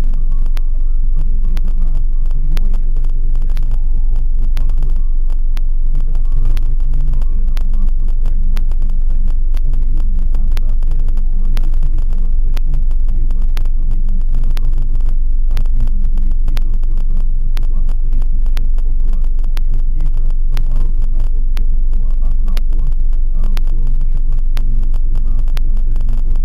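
Car interior heard through a dashcam while driving in traffic: a loud, steady low rumble of engine and road noise, with frequent small clicks.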